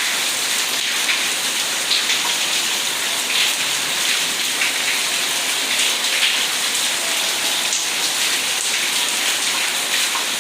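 Heavy monsoon rain pouring down steadily.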